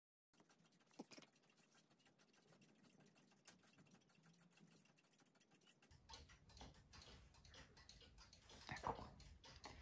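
Near silence: faint rapid clicking with a sharper tap about a second in. From about six seconds in there is soft handling noise of fingers working the freshly glued leather on a cuckoo-clock bellows, with a brief louder rub near the end.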